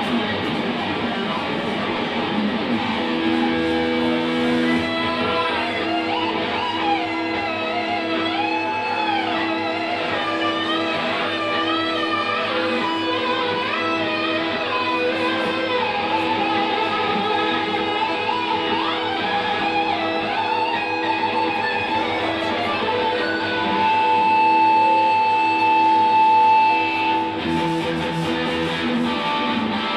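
Electric guitar played live: a picked melody with bent, wavering notes over an evenly repeating low note, then a long held note a little before the end.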